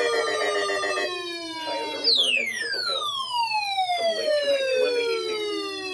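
Siren-like tone with many overtones falling steadily in pitch. One sweep dies out about a second in, and a new one starts high about two seconds in and glides down over about three seconds.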